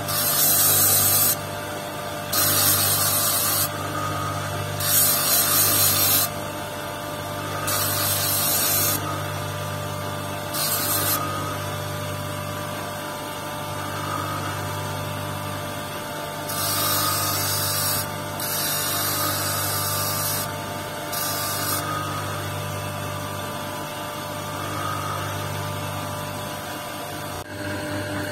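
Electric motor humming steadily as it drives a lapidary wheel. A jasper cabochon on a dop stick is pressed against the spinning wheel again and again, giving a hiss of a second or so each time, with a gap of a few seconds about halfway through.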